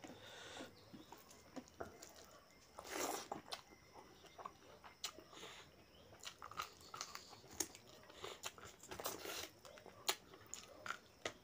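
Close-up eating sounds of a meal of rice and mutton curry eaten by hand: fingers mixing rice on a steel plate and mouthfuls being chewed, with many short clicks and a few louder noisy bursts about three seconds in and again near nine seconds.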